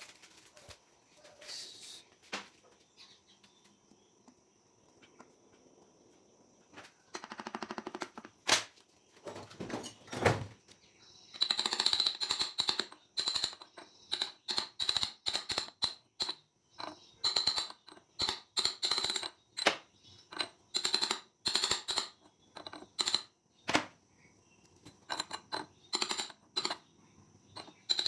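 Metal hand tools working on scooter parts: a few scattered clicks, then from about a third of the way in a long run of sharp metallic clicks and taps in quick clusters, one to two a second.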